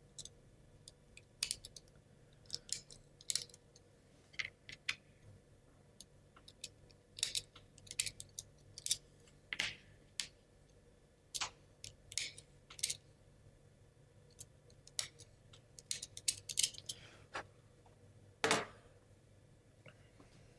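Irregular light clicks and taps of small plywood model gear parts being handled and worked at a table, with one louder knock near the end.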